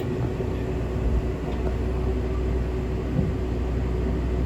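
Steady low rumble and hum of the Zipangu Hiraizumi train, with two faint knocks about one and three seconds in.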